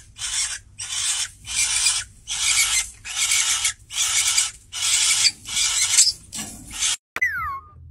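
Cockatiel mounting another cockatiel on a perch, giving a raspy call in short rhythmic bursts, about one and a half a second. Near the end it breaks off and a short falling whistle follows.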